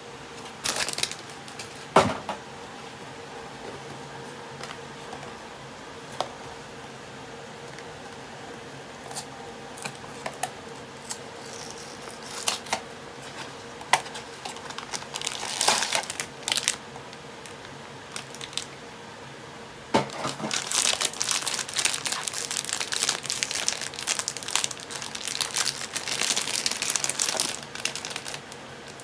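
Blind-box packaging being opened by hand: a few sharp clicks of small vinyl figure parts early on, cardboard handled and torn open around the middle, then a foil bag crinkling and tearing steadily from about two-thirds of the way in.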